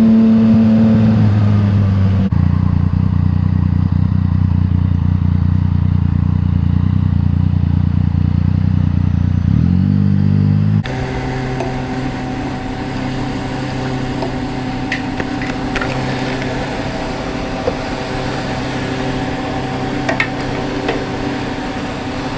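Yamaha MT-09 three-cylinder engine through an Akrapovič exhaust running at steady revs. About ten seconds in the revs rise briefly, then the engine settles into a steady, slightly quieter note.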